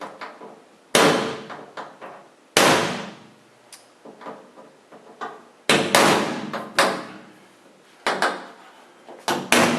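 Hammer striking leftover rivet stubs to drive them into their holes in a cart frame: about eight sharp blows at irregular intervals, each with a short ring, two coming close together near the end.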